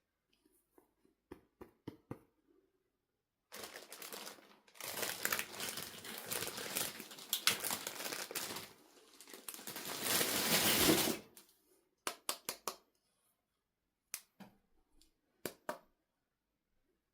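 Plastic and cardboard toy packaging crinkling and tearing for several seconds, followed by a few sharp clicks.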